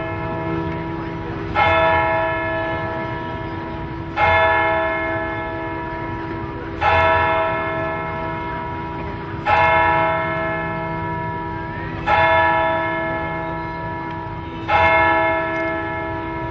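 A church bell tolling slowly: six strokes about two and a half seconds apart, each ringing on and fading into the next.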